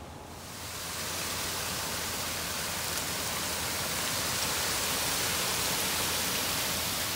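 Water rushing into a drain beneath a rusty grate at the lake's edge: a steady hiss that grows louder about a second in.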